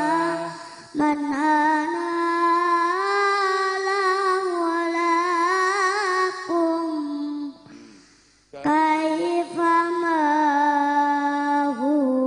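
A young boy singing a sholawat (Islamic devotional song) solo into a microphone, with long, wavering held notes. He breaks off for breath about seven and a half seconds in, then carries on.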